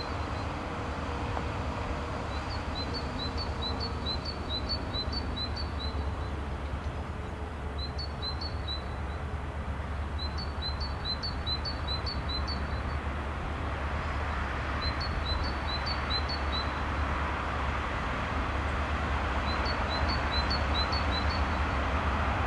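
A G2000 diesel locomotive hauling a container train approaching from a distance, a steady rumble that grows louder over the second half. A songbird sings short phrases of quick high chirps every few seconds.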